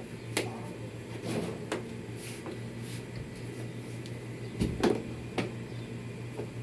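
Scattered clicks and knocks of hands handling the washing machine's panels and parts, a few sharp taps with the loudest clatter about five seconds in, over a steady low hum.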